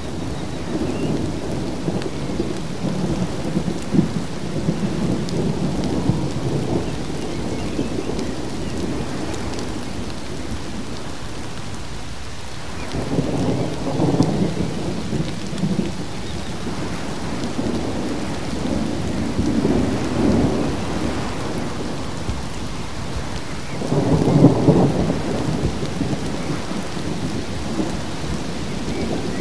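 Thunderstorm: heavy rain falling steadily, with low thunder rumbling and swelling twice, about halfway through and, loudest, near the end.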